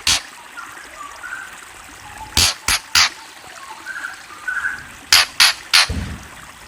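A songbird giving sharp, harsh call notes: one at the start, then two runs of three about a third of a second apart. Faint, soft short whistles sound between the runs.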